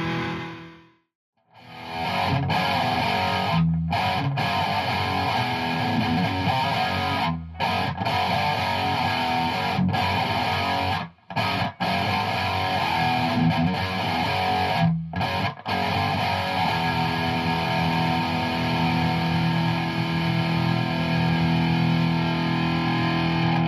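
Distorted electric guitar played through a Hughes & Kettner Tubemeister 18 valve amp head, a heavy riff on the distortion channel. The first phrase fades out about a second in; the riff then resumes and is cut by several short, abrupt stops.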